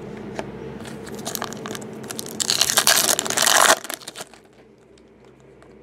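Foil trading-card pack wrapper crinkling and crackling as it is handled and torn open, loudest for about a second and a half in the middle, with light clicks of handling around it.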